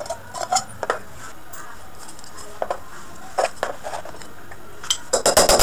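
A cut-open thin metal can handled on a table: scattered light clicks and metallic knocks, then a quick run of rattling clicks near the end.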